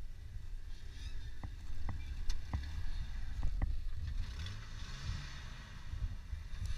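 Off-road Jeep's engine revving under load as it crawls up out of a ditch, its pitch rising and falling around the middle, over a low rumble of wind on the microphone. A few sharp clicks come in the first half.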